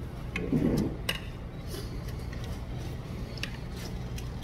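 A metal spoon clicking against a bowl a few times, sparse and irregular, while mixed rice is scooped and eaten. A short low sound about half a second in is the loudest moment, over a steady low background hum.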